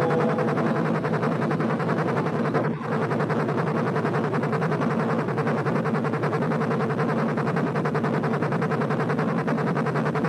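Played-back helicopter-sound track mixed with drone tones: a rapid, even pulsing over held tones, with a brief dip about three seconds in.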